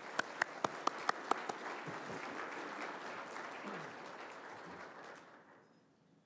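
Audience applauding, with a few sharp claps close by in the first second or so; the applause fades out about five seconds in.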